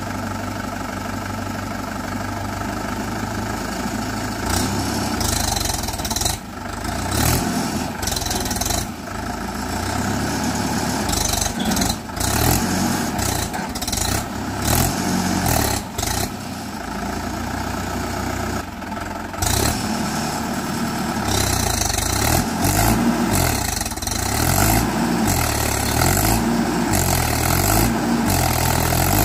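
Swaraj 843 tractor's three-cylinder diesel engine running under load as the bogged tractor strains in deep mud, the revs rising and falling repeatedly over the last third.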